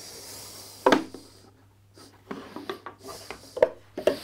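Wooden parts of a small dry-fitted box rubbing, clicking and knocking as its tight joints and panels are worked apart by hand. A scraping slide comes first, then a sharp knock about a second in, a run of lighter clicks and taps, and two more knocks near the end.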